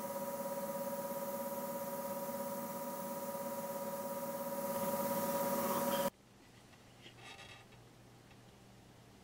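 Airbrush spraying: a steady hiss of air over an even hum from its air supply, which stops abruptly about six seconds in, leaving a quiet room.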